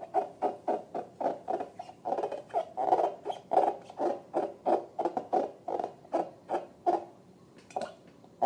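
Rubber balloon squeaking in short pulses, about three a second, as it is squeezed or rubbed. The pulses thin out and stop about seven seconds in.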